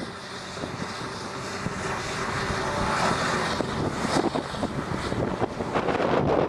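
Hydraulic excavator diesel engine running hard under load, growing louder over the first few seconds and then holding steady.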